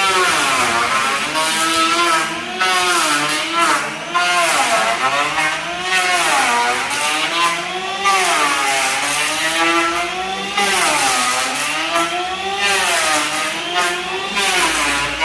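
A small engine or motorised tool running, its pitch rising and falling again and again, every second or two, as if revved or loaded and released.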